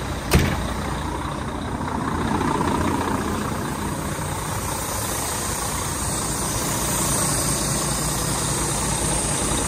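Semi-truck tractor unit's diesel engine idling steadily, left running after a start. One sharp knock sounds about half a second in.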